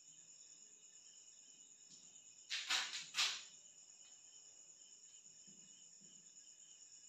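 Faint, steady chirping of crickets, with a brief louder rasping noise in two parts about two and a half seconds in.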